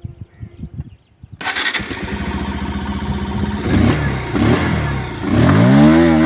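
A Bajaj motorcycle engine starts about a second and a half in and runs unevenly. Near the end it is revved up, its pitch rising and then holding high.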